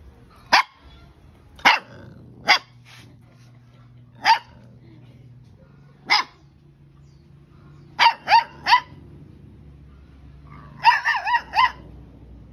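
Puppy barking in short, high-pitched yaps spaced a second or two apart. About eight seconds in come three quick barks, and near the end a rapid run of yelping yips.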